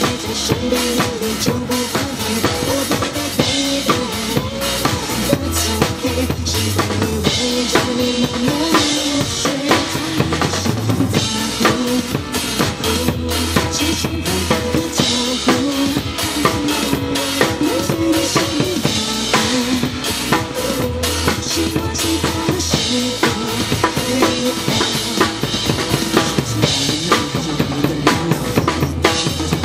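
Drum kit played over the backing track of a pop song: a dense, steady beat of drum strokes on top of the song's recorded melody.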